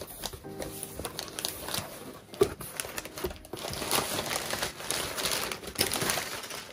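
Crumpled paper packing rustling and crinkling as hands dig through it inside a cardboard box, with the box's cardboard flaps being folded back. A single sharp knock about two and a half seconds in is the loudest sound.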